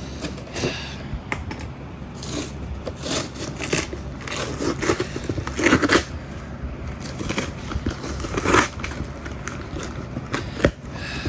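Packaging being handled and opened by hand: irregular scraping, crackling and tearing of cardboard and packing material, with louder rustles a little before the middle and again past it.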